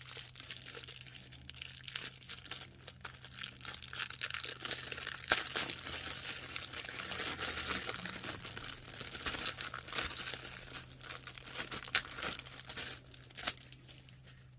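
Crinkly packaging being handled and unwrapped by hand, a continuous crackling and rustling with a few sharp snaps, as an item is taken out of its wrapping.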